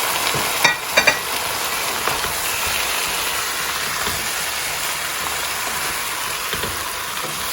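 Chicken thigh pieces sizzling in a hot pan of spiced fried onions as they are stirred, with a few sharp clanks of the spoon against the pan about a second in.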